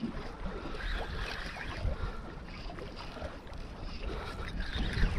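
Water lapping and slapping against the hull of a small boat at sea, with wind buffeting the microphone.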